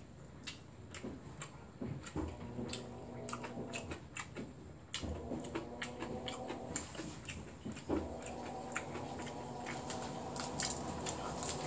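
Someone eating: chewing, with many small clicks of wooden chopsticks on the plates, over a washing machine running steadily in the background.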